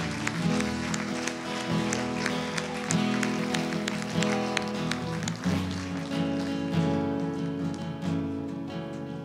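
Music led by guitar, playing steady chords, with the crowd clapping along over the first half before the clapping thins out.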